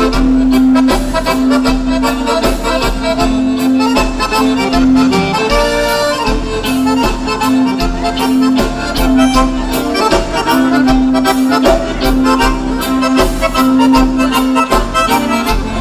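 Instrumental gaúcho dance music played live by a band, led by a piano accordion over bass and a steady drum beat.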